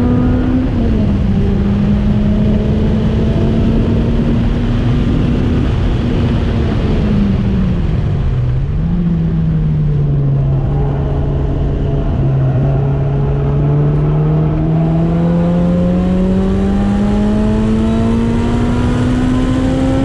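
Lotus Elise SC's supercharged 1.8-litre Toyota four-cylinder engine at full effort on track: an upshift about a second in, revs easing and dropping into a corner around eight seconds in, then climbing steadily through the gear and shifting up again at the end. Wind noise from the open cockpit runs underneath.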